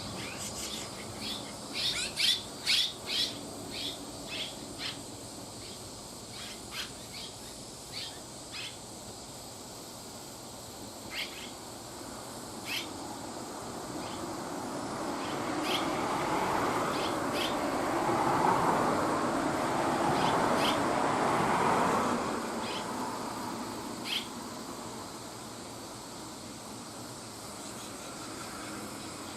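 Red-rumped swallows giving short, high chirps: a quick run of calls in the first few seconds, then single calls spaced out. Midway, the low noise of a passing vehicle swells up and fades away.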